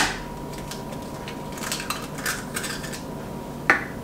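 Light clinks and taps of kitchen utensils and a mixing bowl on a countertop: a quick cluster around the middle and one sharper click near the end.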